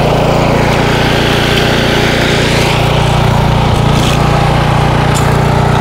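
The 149cc Kohler XT675 engine of a walk-behind string trimmer mower runs steadily at working speed while its spinning line cuts through tall, wet grass and weeds.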